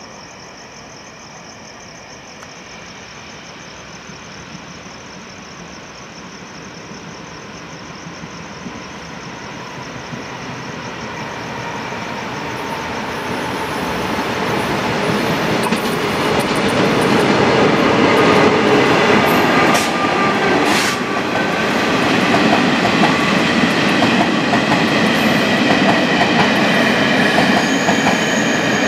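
Taiwan Railway train approaching and running through a station without stopping. It grows steadily louder for about fifteen seconds, then stays loud as the cars roll past with wheels clattering over the rail joints and a couple of sharp clicks midway.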